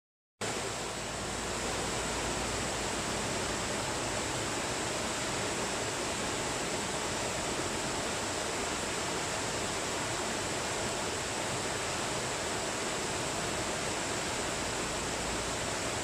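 Waterfall: a steady, unbroken rush of falling water that starts about half a second in.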